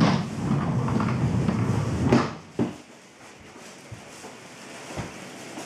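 A wooden child's high chair with table being pushed across a wooden floor: its legs scrape along the boards for about two seconds, then two sharp knocks, followed by a few faint knocks as it is nudged on.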